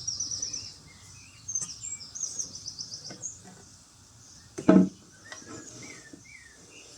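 Small birds chirping, with fast high trills repeated through the first three seconds and scattered short chirps after. About two-thirds of the way through comes a single brief, louder low sound.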